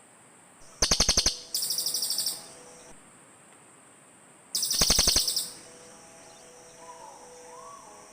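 Cililin bird call, used as a trapping lure: two loud, rapid rattling trills about four seconds apart. The first is followed straight away by a higher, fast chattering trill.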